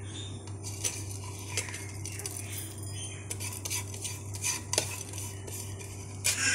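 Scattered light clinks and taps of a spoon against a ceramic bowl as chilli powder is spooned in, over a steady low hum.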